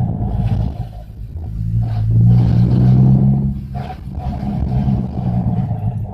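Car engine pulling under acceleration, getting louder for a couple of seconds before easing off just past the middle. A steady whine runs over it from the badly worn manual gearbox.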